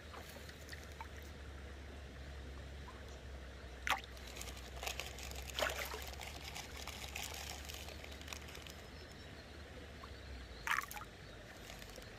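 Pond water trickling and lapping at the bank, with a few brief splashes as fish break the surface. The sharpest are about four seconds in and near the end.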